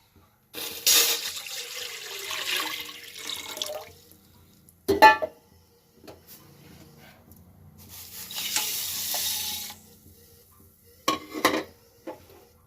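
Water running or pouring in two spells of a few seconds each, with a sharp clink of a utensil between them and a couple of lighter clinks near the end.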